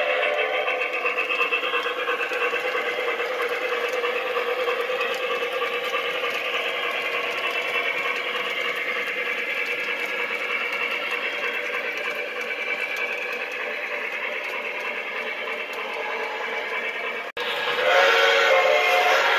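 Lionel Legacy two-truck Shay O gauge model steam locomotive and its train running past on three-rail track, a steady running sound that fades slowly as the train moves away. Near the end the sound cuts out briefly and a louder sound comes in.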